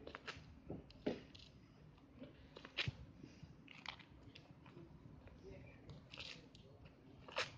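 Faint crunching scuffs and steps of sandals on gritty pavement: half a dozen short, sharp scrapes spread irregularly over a low background.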